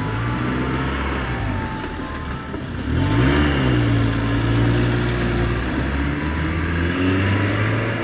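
Truck engine sound effect running steadily, then revving about three seconds in, rising in pitch and getting louder before settling again.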